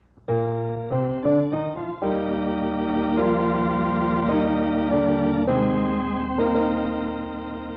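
Organ playing a short musical bridge between acts of a radio drama: a few quick chord changes, then long held chords that slowly fade.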